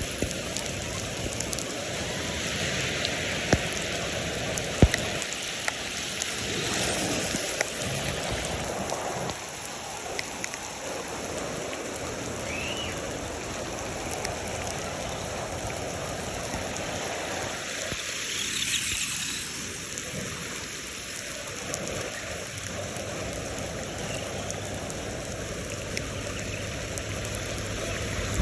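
Rain falling and water running along a flooded street gutter: a steady splashing hiss, with a couple of small knocks a few seconds in.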